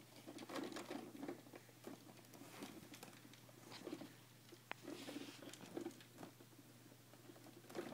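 Faint, irregular taps and rustles of a baby's hands handling a plastic VTech Spin & Learn Top toy, over a low steady hum.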